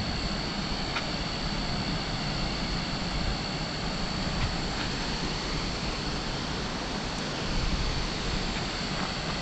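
Waterfall on the Genesee River heard from an overlook: a steady, even rushing roar, with a thin steady high tone above it.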